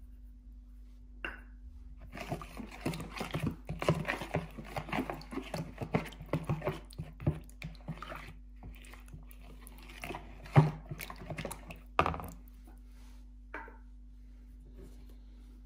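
Hands-on kitchen food preparation: irregular rustling, scraping and light clinks of handling food and utensils, with two sharper knocks near the end.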